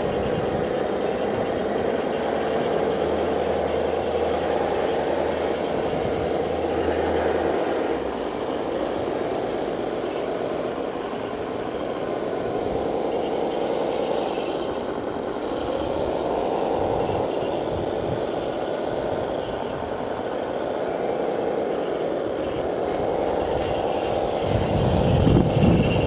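Radio-controlled model tanks driving and climbing ramps: their motors and gearboxes whine steadily, the pitch rising and falling every few seconds as they speed up and slow down.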